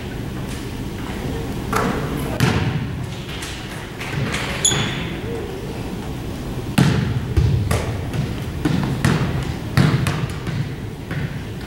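A basketball bounced on a hardwood gym floor: a string of sharp thuds at uneven intervals, over a murmur of crowd chatter.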